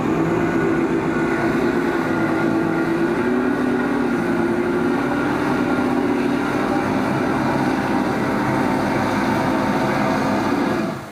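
Fast boat's engines running steadily under way, a loud constant drone that stops suddenly near the end.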